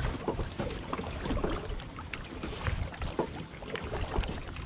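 Double-bladed kayak paddle stroking on alternate sides through calm water, with small irregular splashes and drips off the blades.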